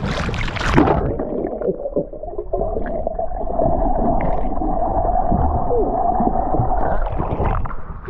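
A splash as a swimmer ducks under the sea surface, then the muffled, dull sound of being underwater, with a steady hum for several seconds. Near the end the swimmer breaks back through the surface and the sound opens up again.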